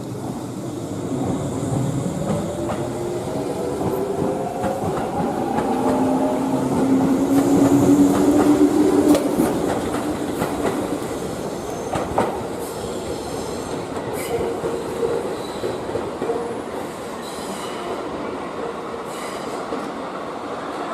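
Electric train pulling away, its motor whine rising in pitch over the first few seconds, with wheels clicking over rail joints. It is loudest about eight seconds in.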